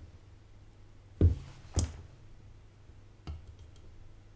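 Workbench handling knocks during desoldering: two sharp knocks about half a second apart, then a fainter one a second and a half later.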